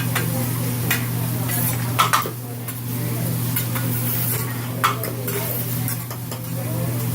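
Food sizzling on a hibachi flat-top griddle while metal spatulas scrape and clink on the steel a few times, over a steady low hum.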